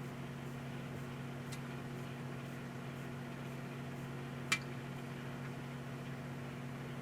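Emerson microwave oven running with a steady hum while loose popcorn kernels pop only sparsely: a faint pop about a second and a half in and one sharp pop about four and a half seconds in.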